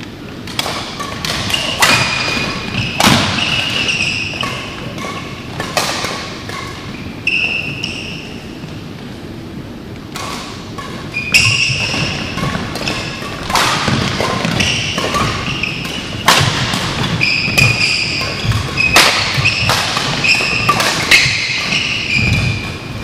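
Badminton doubles rally: sharp racket strikes on the shuttlecock, mixed with short squeaks of court shoes on the floor. The play thins out for a few seconds about a third of the way through, then picks up again with strikes and squeaks coming thick and fast.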